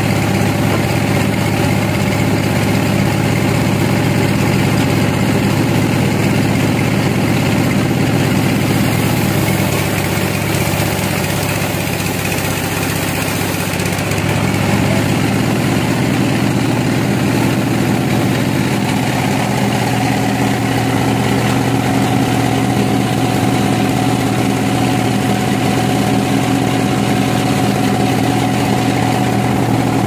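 Large band sawmill running as its blade saws through a big log: a steady machine drone with several held tones. It goes a little quieter for a few seconds about a third of the way in, and its tone shifts slightly a little past halfway.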